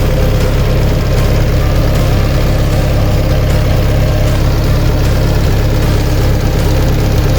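Diesel engine of a Komatsu PC60-7 crawler excavator idling steadily.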